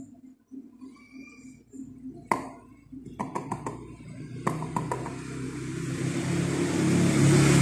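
A few sharp knocks, then a motor vehicle's engine growing steadily louder as it passes close by, loudest near the end.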